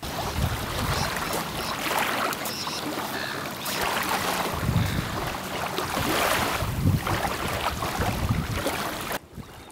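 Wind buffeting the microphone in irregular low gusts, with small waves lapping on a sandy shore. The noise cuts off abruptly shortly before the end.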